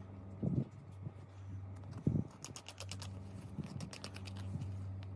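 A small blade cutting through a helmet's foam ear pad around the speaker hole: two soft low thumps, then a quick run of small crackling clicks from about two seconds in. A steady low hum runs underneath.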